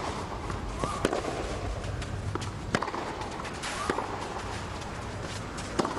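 Tennis racquets hitting the ball in a baseline rally on a clay court: a few sharp hits a second or more apart, over a steady background hum.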